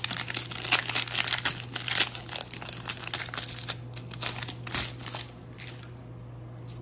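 Foil-lined baseball card pack wrapper being torn open and crinkled by hand: a dense run of sharp crackles that stops about five seconds in.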